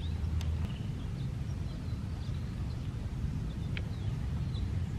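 Outdoor ambience: a steady low wind rumble on the microphone, with a few faint, short bird chirps scattered through.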